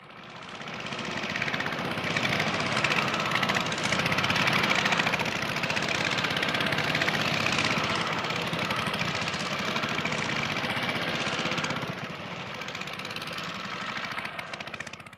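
Motorcycle engine running with a rapid, even firing pulse. It swells up over the first couple of seconds, holds steady, drops somewhat about twelve seconds in, and fades out at the end.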